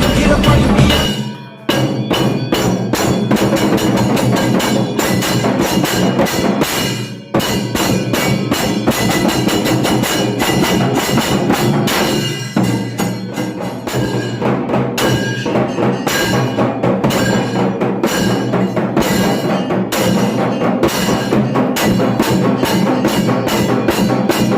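Instrumental break in a devotional song: quick, steady percussion strikes over a sustained instrumental backing, cutting out briefly twice in the first several seconds.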